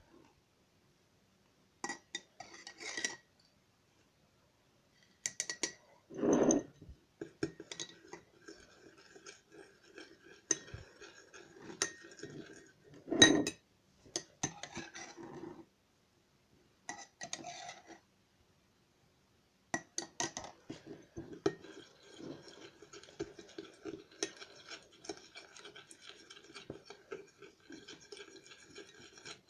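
Metal spoon clinking and scraping against glass: stirring white glue and dissolved baking soda into slime in a cut-glass bowl. The first part is stop-and-start, with two louder knocks about 6 and 13 seconds in, and steady stirring takes over about two-thirds of the way through.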